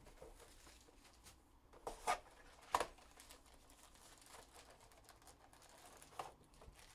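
A 2021 Panini Phoenix football card box being opened by hand and its wrapped packs slid out: faint cardboard and wrapper rustling, with two sharp snaps about two and three seconds in and a smaller one near the end.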